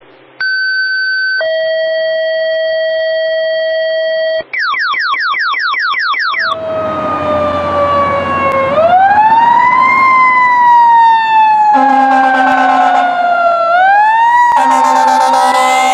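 A siren holds a steady tone for a few seconds and then switches to a fast yelp. Then a fire engine's wailing siren slowly falls in pitch and winds back up twice, with air horn blasts joining it in the last few seconds.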